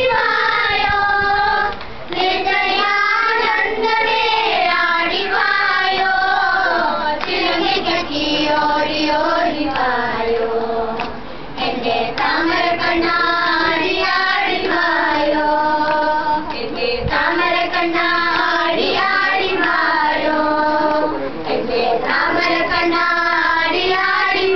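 A group of children singing together, a song of held, gliding notes with short breaks between phrases about two seconds in and again near eleven seconds.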